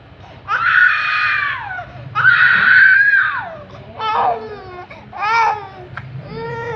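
Small child crying: two long wails with pitch falling at the end, then three shorter, broken cries.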